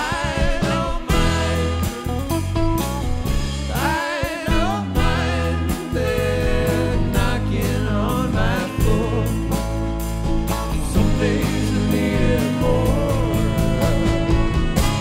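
A funk jam band plays live, with a male lead vocal sung from behind the drum kit over electric guitar, bass, saxophone and drums.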